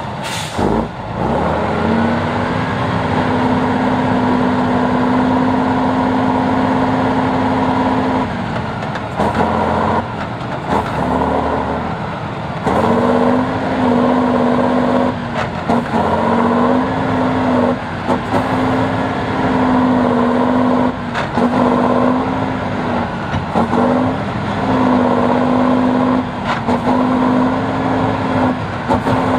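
Large diesel engine of an eight-wheeled off-road trial truck working hard under load. It holds steady high revs for several seconds, then is revved up and down over and over with short drops in between as the truck climbs and manoeuvres.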